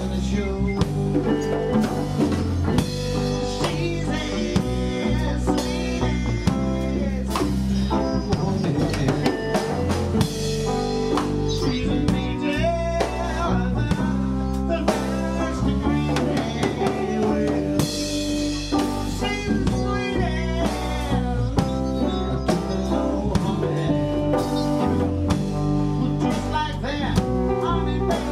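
Blues-rock music with electric guitar, bass and drum kit playing a steady beat.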